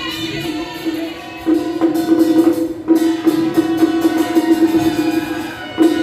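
Traditional-style music: a held melody line with a fast percussive beat, getting louder about one and a half seconds in.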